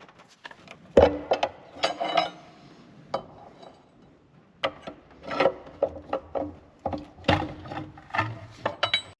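Engine timing chain cover being pushed and worked loose from the engine: uneven scraping and rubbing with several sharp knocks, loudest about a second in and again near the middle and end.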